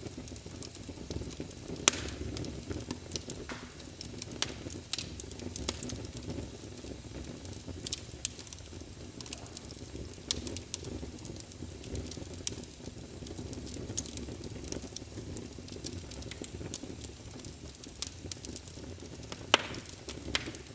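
Wood fire burning in a fireplace: a steady low rush of flames with irregular sharp crackles and pops, the loudest pop about two seconds in.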